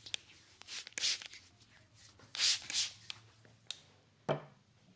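Trigger spray bottle squirting liquid onto bare skin in several short hissing sprays, the strongest around one second in and a pair between two and three seconds in. A single soft thump near the end.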